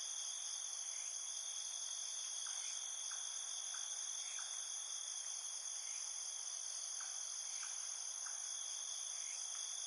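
Steady high-pitched insect chorus, cricket-like, with several continuous overlapping trills. Faint short chirps sound every second or so.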